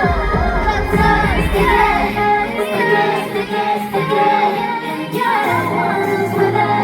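Female voices singing live over a pop backing track, heard through the hall's PA. The bass drops out about two and a half seconds in and comes back near the end.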